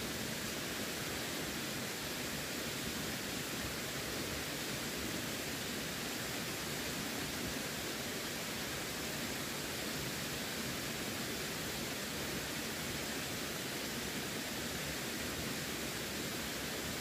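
Steady, unbroken rush of running water, an even hiss with no splashes or changes.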